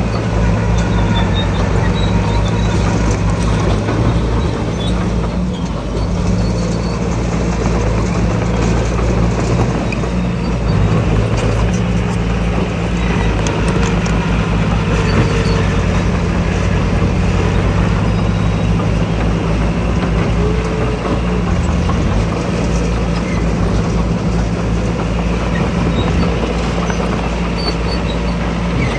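Diesel engine of heavy earthmoving machinery running steadily, with an even low hum.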